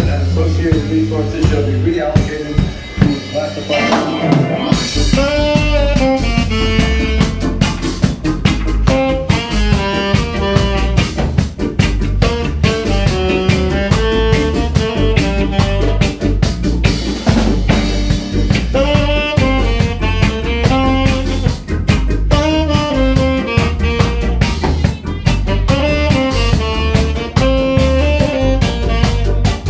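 A reggae-funk band playing: drum kit and bass, with the full band coming in about four seconds in and a melody line riding over a steady beat.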